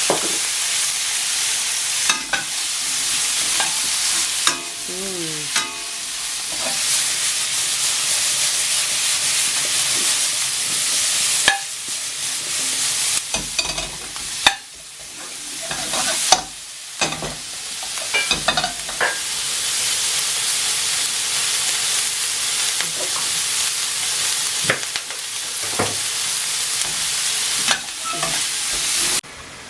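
Onions, bell peppers and mushrooms sizzling in olive oil in a frying pan as they sauté toward caramelising. A spoon or spatula stirs them, scraping and knocking against the pan. The sizzle briefly thins out about halfway through.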